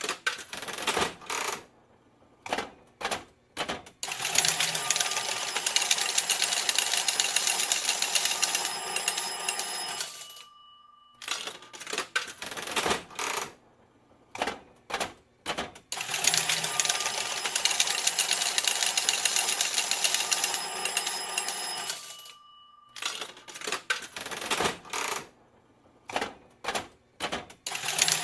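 Coins paying out from a casino slot machine. Scattered single coins clink, then a dense stream of coins rattles continuously for about six seconds with faint steady ringing tones over it. The pattern comes twice: scattered clinks, a long pour, and scattered clinks again near the end.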